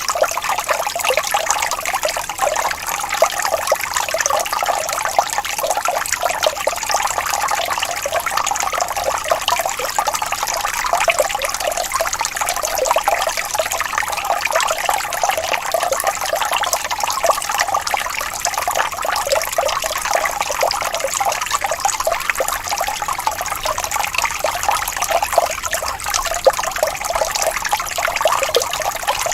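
Water of a small waterfall splashing and trickling steadily, with many small rapid splashes and no pauses.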